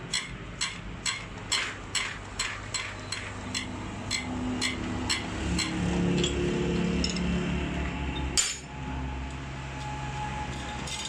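Light metal clicks of a spanner and tools against a diesel fuel injector body, coming about twice a second for the first few seconds, then fainter, with one sharper click about eight seconds in.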